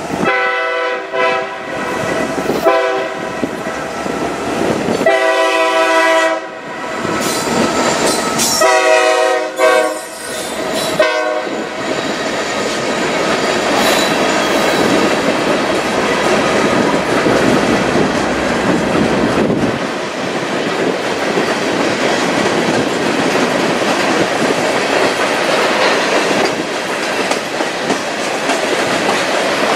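Norfolk Southern freight train's diesel locomotive sounding its air horn in four or five blasts over the first ten seconds or so as it closes in and passes. After that comes the steady noise of the freight cars rolling by at speed, with the wheels clattering over the rail joints.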